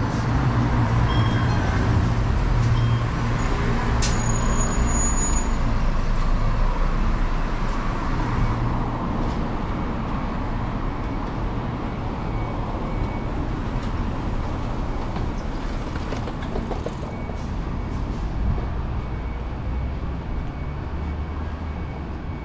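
Steady city road-traffic noise with the low hum of a heavy vehicle's engine, loudest in the first several seconds and then easing off. A single sharp click comes about four seconds in.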